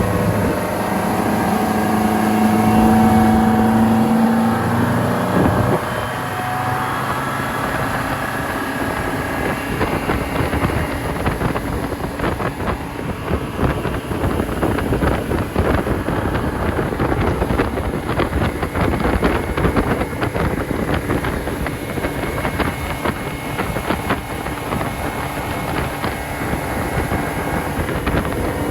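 Motorboat engine speeding up over the first few seconds, then the boat running fast with steady wind noise on the microphone.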